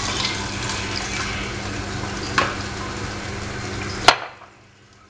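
A spoon stirring pork offal (asadura) sizzling in a frying pan, with a small knock about halfway and a sharp knock of the spoon against the pan near the end. After the sharp knock the sizzle falls away almost to quiet.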